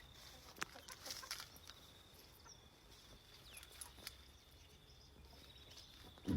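Quiet outdoor ambience in a backyard chicken yard: a faint steady high tone, a few soft clicks and a faint bird chirp, with a short chicken call right at the end.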